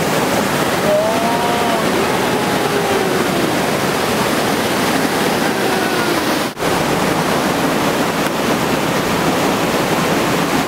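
Waterfall rushing: a steady, loud roar of falling water, broken only by a brief dropout about six and a half seconds in.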